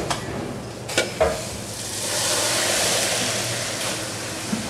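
Hot oil with browned garlic poured into a pot of chilli sauce as a tadka, sizzling hard: a hiss that swells about two seconds in and slowly eases off. Two sharp clicks about a second in.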